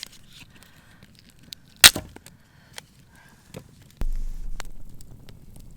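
Campfire crackling with scattered small pops and one loud sharp pop about two seconds in. A low rumble starts suddenly about four seconds in and fades.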